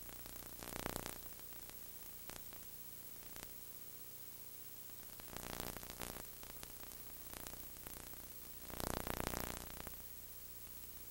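Steady hiss and low hum of a tape transfer with no programme sound, broken three times by louder bursts of rushing noise.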